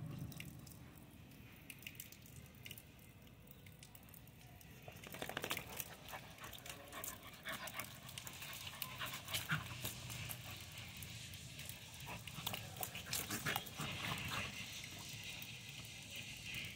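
Yellow Labrador puppy splashing and pawing through a shallow puddle on wet concrete: scattered small splashes and paw slaps, quieter at first and busier from about five seconds in.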